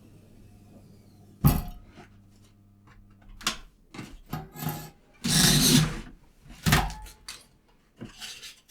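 Knocks, clicks and a longer scrape of foam sheets and the cutting tool being handled on a bench. A faint electrical hum stops about three and a half seconds in.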